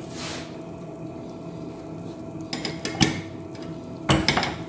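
Stainless-steel pressure cooker lid being handled and set down, metal on metal: a few knocks about three seconds in and a louder clatter near the end.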